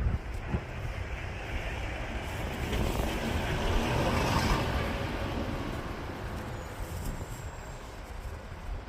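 A road vehicle passing, its noise swelling to a peak about four seconds in and then fading, with wind noise on the microphone.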